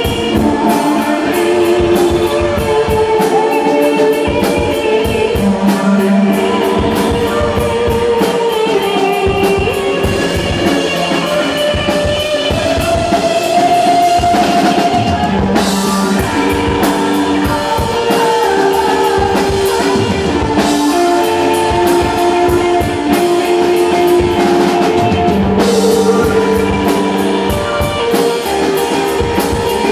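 Live rock band playing: a drum kit keeping a steady beat under guitar and singing, with cymbal crashes about halfway through and again near the end.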